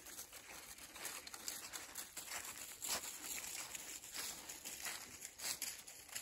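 Footsteps crunching through dry fallen leaves: an irregular run of crackling steps, about two a second.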